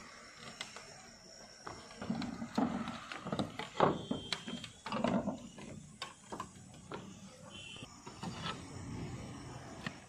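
Boots stepping over clay roof tiles, the tiles knocking and clinking unevenly underfoot, busiest and loudest in the middle.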